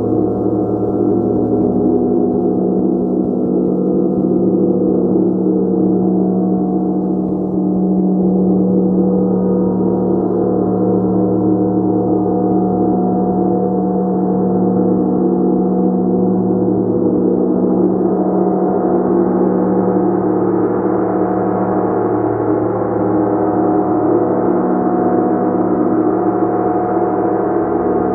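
A gong played continuously as a sustained, shimmering wash of many overlapping tones, strongest in the low-middle range. It grows brighter about two-thirds of the way through, as its higher overtones build.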